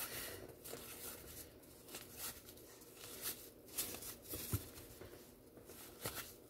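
Faint rustling and light flicks of 1990 baseball cards being handled and flipped through by hand, coming at irregular intervals.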